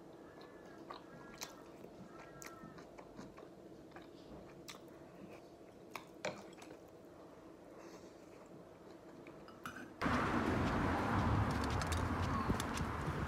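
Quiet chewing with scattered clinks of a metal utensil against a glass jar and a bowl. About ten seconds in it switches suddenly to much louder outdoor noise with footsteps on a concrete footpath.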